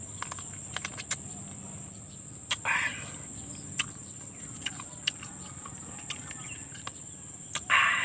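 A person eating ripe sineguelas (Spanish plum) fruit: scattered small clicks of chewing and lip smacking, with two louder slurps of the juicy flesh, one about three seconds in and a louder one near the end. A steady high insect drone runs underneath.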